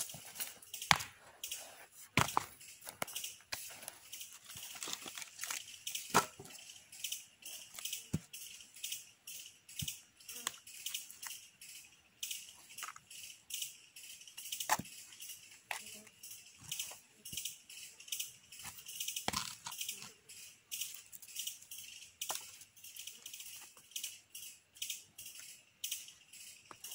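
Rocks being set down and knocked against one another while a stone fire ring is built, giving irregular sharp clacks and thuds. A steady high hiss with fast, even pulsing runs behind them.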